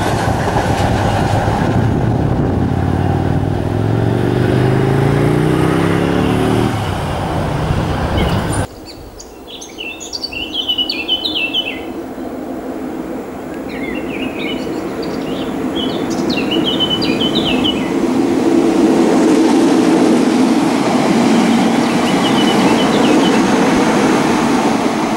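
A Transilien double-deck electric train running, its traction motors whining higher and higher as it picks up speed; the sound then cuts off abruptly to birds chirping, and a TER Régiolis regional train approaches, its wheel-and-rail noise and a steady motor hum growing louder through the second half.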